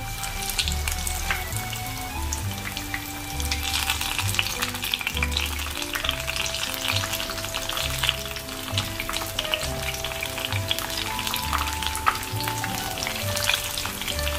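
Flour-battered eggplant deep-frying in hot oil in a wok: a dense, steady sizzle and crackle of bubbling oil. It grows fuller a few seconds in as more pieces are lowered into the oil.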